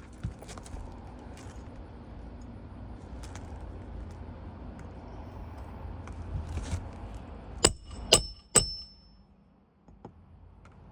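Three sharp, ringing metal-on-metal strikes about half a second apart near the end: a roof snake hammering a roofing nail down beneath a shingle. A low steady rumble comes before them.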